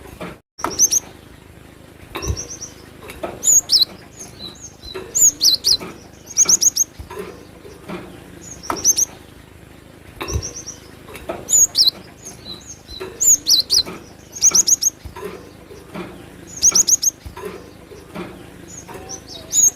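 Cinereous tit (gelatik batu) calling: short, high chirpy phrases of three or four quick notes, repeated every second or two, with scattered faint knocks between.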